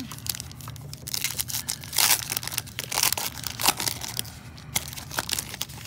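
Foil trading-card pack wrapper being handled and torn open by hand: a run of crinkling, crackling rustles, loudest about two seconds in and again near four seconds.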